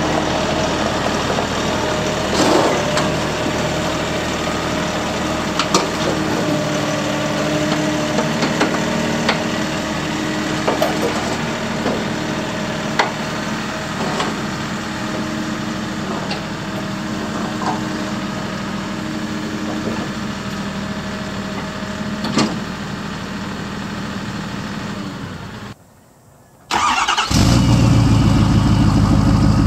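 Kioti compact tractor's diesel engine running steadily as the tractor climbs onto a trailer, with occasional sharp metal clanks. Near the end, after a short gap, a Ford pickup's engine starts up abruptly and runs, heard close to its tailpipes.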